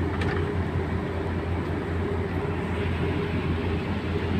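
Steady low mechanical drone of running machinery heard inside an RTG crane cabin: a constant low hum with an even rushing noise above it, unchanging throughout.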